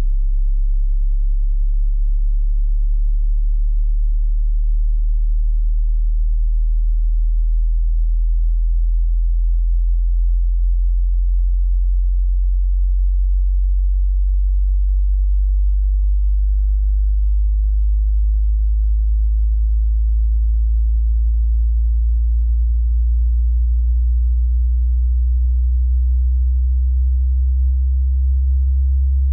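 A single very low-pitched pure sine test tone from a hearing test, held at a steady loudness and gliding slowly upward in pitch near the bottom of the audible range.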